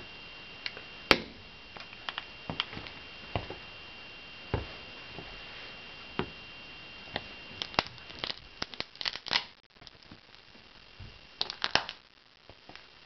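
Pieces of dried fruit cracking and crunching under the sole of a Nike Shox shoe on a hard stone floor: scattered sharp cracks and taps, with rapid bursts of crackling crunching about eight and eleven and a half seconds in.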